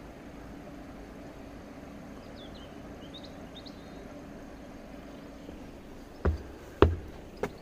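Steady low outdoor background rumble with a few faint bird chirps, then footsteps on the steps of a steel railway footbridge: three heavy footfalls in the last second and a half, about half a second apart.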